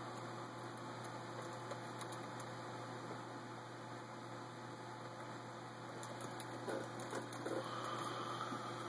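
Steady low electrical hum under an even hiss. A few light clicks and rustles come about six to eight seconds in as the phone is handled.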